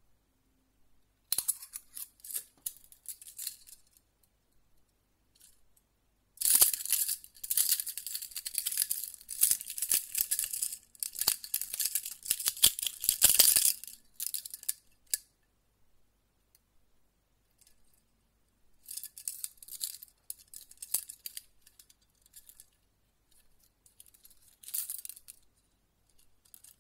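Metal handcuffs clicking and rattling in bouts: a few clicks at first, a dense clatter of about eight seconds in the middle, then two shorter bouts near the end.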